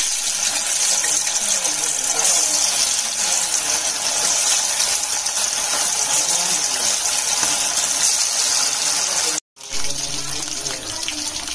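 Marinated chicken pieces deep-frying in hot oil in a kadai: a steady, loud sizzle as the pieces go in and bubble. The sound cuts out for an instant about nine seconds in, then resumes a little quieter.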